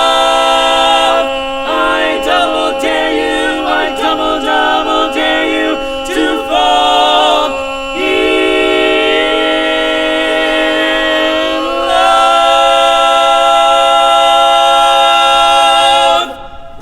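Male barbershop quartet singing a cappella in close four-part harmony: the closing tag of the song, a run of held chords that settles into one long final chord and cuts off sharply near the end.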